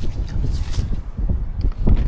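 Wind buffeting the microphone: an uneven low rumble that swells and dips in gusts.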